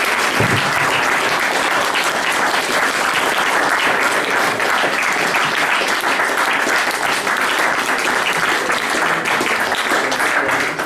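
A small audience applauding steadily, a dense patter of many hands clapping.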